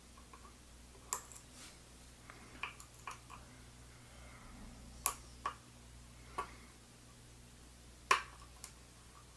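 Scattered sharp metal clicks and ticks from a lock pick working the sliders of a Yale Superior dimple cylinder, about seven of them with the loudest near 1, 5 and 8 seconds in. They come over a faint steady hum.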